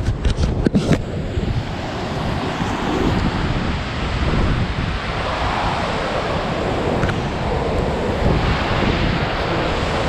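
Steady roar of a tall waterfall pounding close by, with wind and spray buffeting the microphone. A few sharp knocks in the first second come from the camera being handled.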